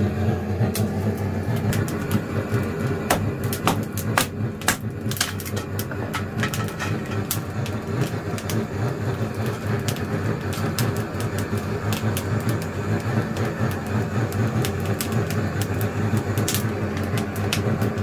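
Wood fire burning in a traditional Korean agungi firebox: irregular sharp crackles and snaps over a steady low rumble.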